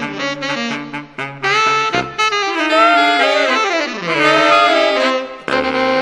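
Saxophone quartet playing jazz in harmony. Quick short notes come in the first couple of seconds, then held chords in which a low saxophone slides down in pitch midway. A brief break follows, and a new sustained chord enters near the end.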